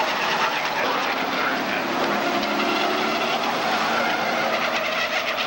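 Stock cars racing around an oval track, several engines running together in a steady, continuous drone.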